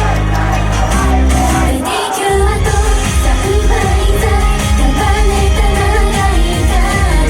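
Japanese idol pop song performed live, with singing over a loud backing track. The bass drops out briefly about two seconds in, then a pulsing beat comes back in.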